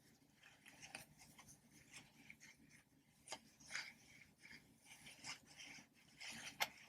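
Quiet rubbing and handling of toy animal poppers, with scattered light clicks and one sharper pop about six and a half seconds in.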